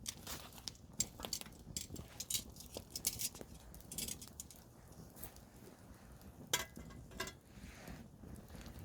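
Wood campfire crackling, with irregular sharp pops and snaps and a few short hisses, one louder pop about six and a half seconds in.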